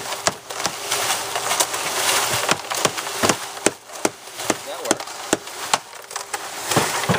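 Small electric cement mixer with a plastic drum running, wet concrete tumbling inside and hitting the drum in irregular sharp clacks and knocks over a faint steady motor hum.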